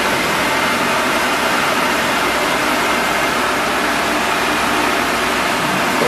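Automatic wood-turning lathe running: a steady, loud machine noise with a faint hum in it and no breaks.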